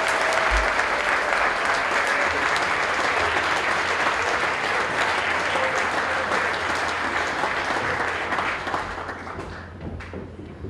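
Audience applauding, the clapping fading away about nine seconds in.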